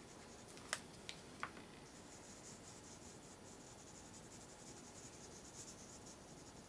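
Faint scratching of a felt blender-pen tip stroked back and forth over paper while blending marker colour, with three light clicks about a second in.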